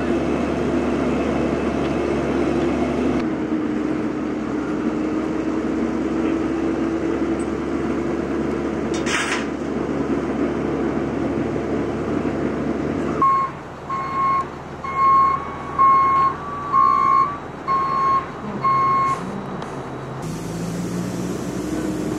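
A heavy truck's engine idling steadily, then a reversing alarm beeping about a dozen times in a regular run for roughly six seconds, starting a little past the middle.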